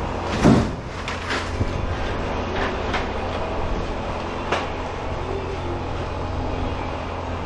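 Pieces of scrap metal clattering as they are tossed down during sorting and weighing, the loudest knock about half a second in and a few lighter ones after. A steady low hum runs underneath.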